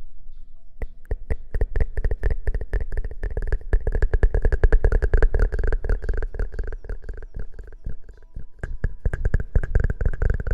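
Fast, rhythmic scrubbing and rustling directly on the microphone, as in ASMR hair-washing, starting about a second in and continuing densely.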